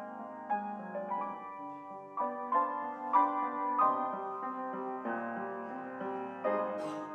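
Piano playing a hymn arrangement, chords and melody notes struck about every half second and left to ring and fade.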